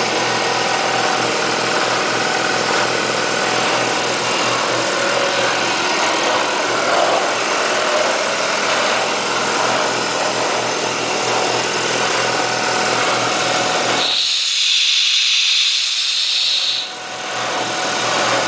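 Ingersoll Rand 60-gallon vertical air compressor, 3 hp electric, running steadily while its pump builds little air, which the seller puts down to a possible issue with the pump. Near the end a loud hiss lasts about three seconds while the running sound drops away, then the running resumes.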